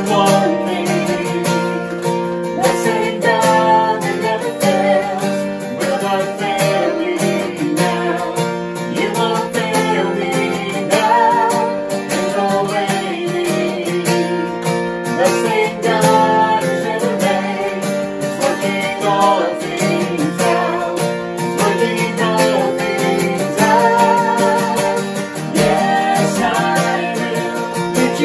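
Acoustic guitar strummed steadily in a worship song, with a small group of voices singing along at times.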